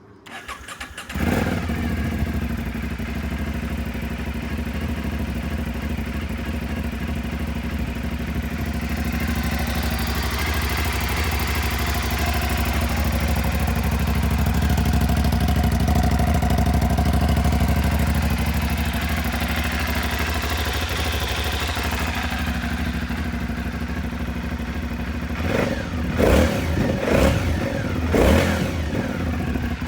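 Aprilia Dorsoduro 750's V-twin engine starting about a second in and idling steadily, then revved in three short blips near the end.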